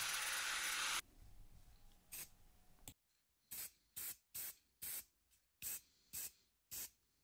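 An angle grinder running on a small steel bracket, cut off sharply about a second in. Then an aerosol spray-paint can is sprayed in seven short hissing bursts, about half a second apart.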